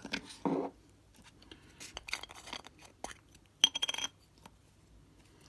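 Small metal watchmaker's tools being handled on the bench: light clicks and scrapes, then a quick cluster of bright, ringing metallic clinks about three and a half seconds in.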